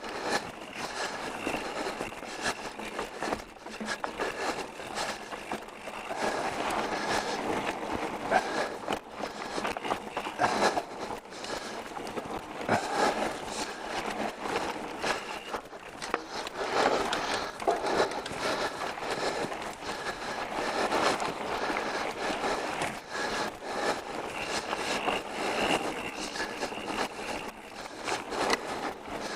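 Pivot Switchblade full-suspension mountain bike rolling fast over a rocky dirt trail: a steady rush of tyre and wind noise with frequent knocks and rattles from the bike going over rocks.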